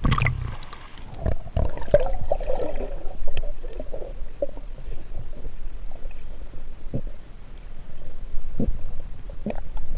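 Underwater sound picked up by a camera submerged in a river: a muffled low rumbling and gurgling of moving water, with scattered sharp knocks.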